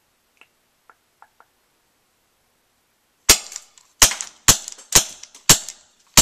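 A non-blowback CO2-powered Colt 1911 airsoft pistol firing five or six sharp shots in quick succession, about two a second, starting about halfway through, after a few faint clicks. The owner says its CO2 is running a little low, so the shots are less powerful.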